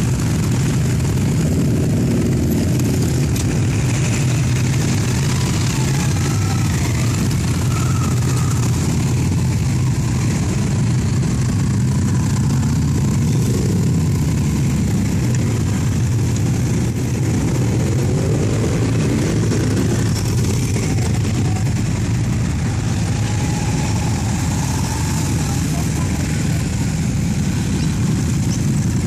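Motorcycle engines, a mix of sport bikes and cruisers, running steadily as the bikes ride past one after another. Individual engines rise in pitch as they rev and pull away, a few seconds in and again around eighteen seconds.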